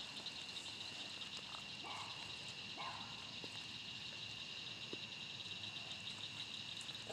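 Night insect chorus, a steady high pulsing trill. Two short lower calls about a second apart come about two seconds in.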